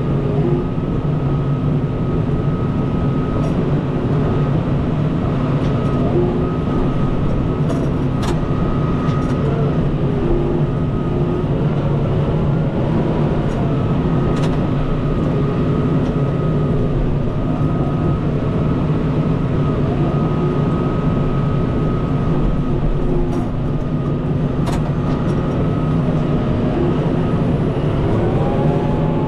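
Kubota M5-091 tractor's four-cylinder diesel engine running steadily under load while pushing and lifting snow with the front loader, with a steady high whine over the engine note and a few light clicks. The engine note rises near the end.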